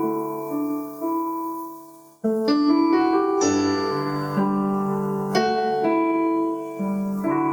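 Piano playing slow, sustained chords as the instrumental introduction to a worship song. The first chord dies away, and a new phrase of chords comes in about two seconds in.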